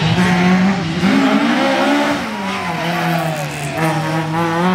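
Performance car engine working hard on a rally stage. Its pitch climbs, drops sharply about two seconds in as the revs fall, then holds steady.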